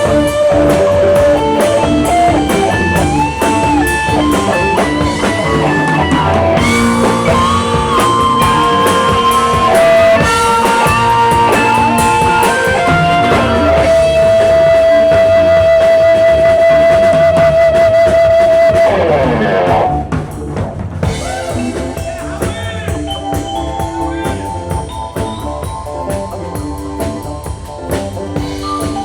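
Rock music with a drum kit and a lead electric guitar bending notes, holding one long wavering note and then sliding down. About two-thirds of the way through it cuts to quieter music with a different, lighter sound.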